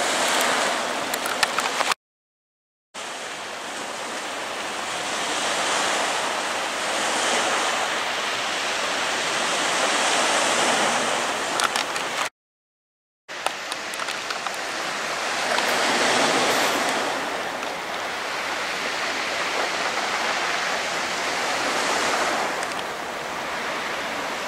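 Sea surf washing on a rocky shore: a steady hiss of water that swells and ebbs every few seconds. It cuts out abruptly twice, for about a second each time.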